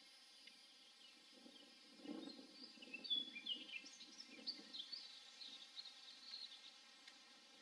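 Birds chirping in short, quick, high notes for several seconds, starting about two seconds in, over a faint low rumble.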